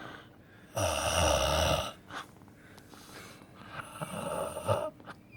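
A man snoring: one long, loud snore about a second in, then softer breathing sounds.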